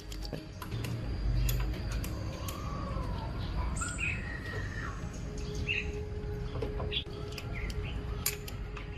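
Birds chirping in short, gliding calls over a low steady hum, with scattered sharp clicks and taps.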